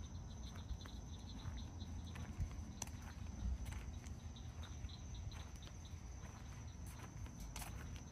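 Faint outdoor background of insects chirping, with a rapid run of ticks at first, a steady low rumble and a few scattered clicks.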